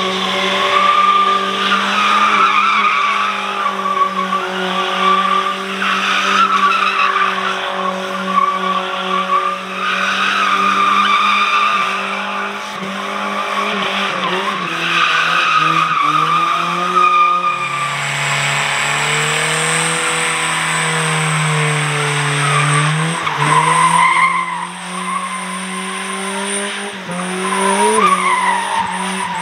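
A vehicle's engine droning steadily while driving. Its pitch drops about two-thirds of the way through and climbs back a few seconds later, with road noise underneath.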